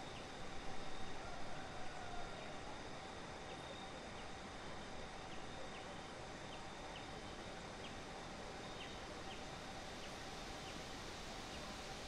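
Faint outdoor ambience: a steady hiss with two thin, faint steady tones, scattered short high chirps, and a brief louder rustle-like patch about a second in.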